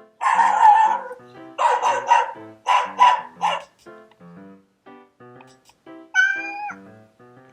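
Dog barking sound effect played back for a cat: one long bark, then a quick run of five or six shorter barks, with a single meow about six seconds in. Background music runs underneath.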